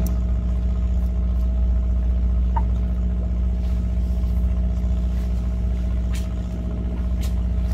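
Steady low drone of a fishing boat's machinery running at an even pitch, with a few faint clicks near the end.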